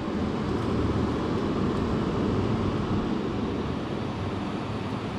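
A fan running steadily, giving an even rushing noise.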